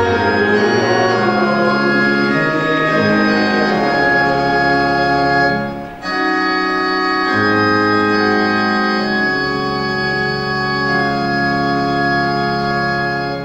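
Church organ playing a psalm tune in slow, held chords, with a short break about six seconds in and the final chord released at the very end.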